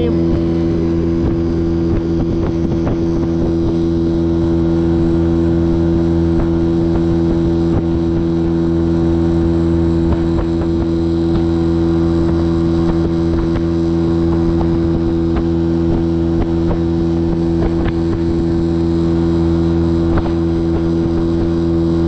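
Outboard motor driving an inflatable boat along at a steady cruising speed: an even hum whose pitch does not change.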